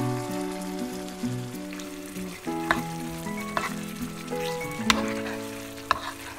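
Chicken salan sizzling in the pan with a little water just added, under instrumental background music of held, stepping notes. A few sharp clicks sound in the middle.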